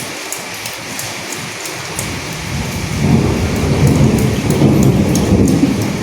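Steady rain with scattered drops, and a low rumble of thunder that builds about two seconds in and eases off near the end.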